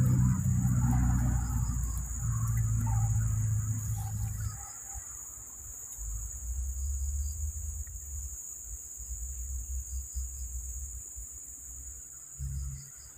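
Insects chirping with a steady high buzz, over a low rumble that is strongest for the first four or five seconds and then drops to a faint hum.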